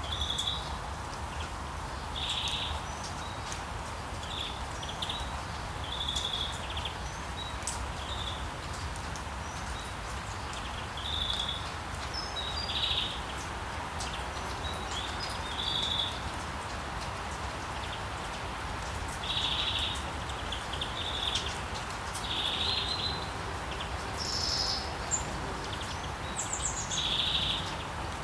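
Birds chirping, short calls repeating every second or two with a few higher calls near the end, over a steady hiss of rain.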